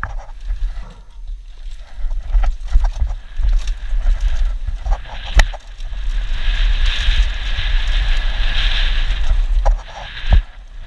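Downhill mountain bike ridden fast on a dirt trail: wind rumbling on the helmet camera's microphone, with scattered knocks and rattles from the bike over bumps. From about six seconds in a steady hiss comes up as the speed rises, easing off shortly before the end.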